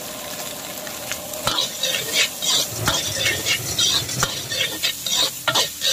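Diced vegetables sizzling in a hot steel wok, then a metal ladle scraping and stirring them against the wok, about two scrapes a second from a second and a half in.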